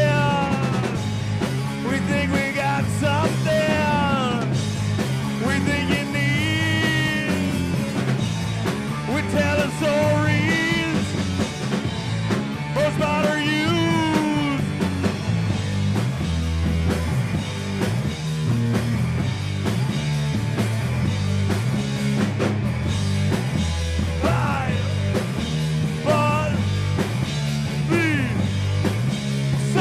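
A rock band playing live: electric guitar, bass guitar and drum kit, with a man singing over the first half.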